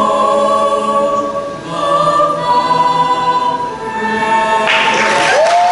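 A choir singing sustained chords, with a crowd beginning to cheer and clap near the end.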